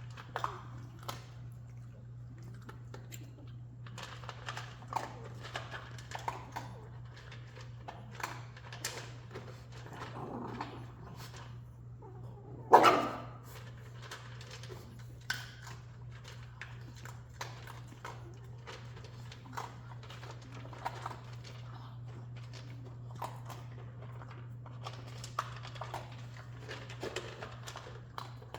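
Jack Russell Terrier puppies making small whimpers and scrabbling, with many short scattered sounds and one much louder sharp sound about halfway through, over a steady low hum.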